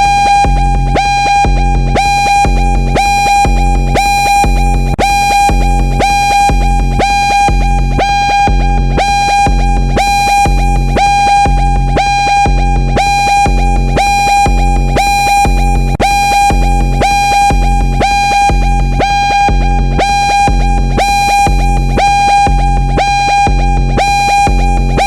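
Synthesized futuristic emergency alarm siren: a loud high tone at one steady pitch, pulsing about twice a second over a low pulsing beat.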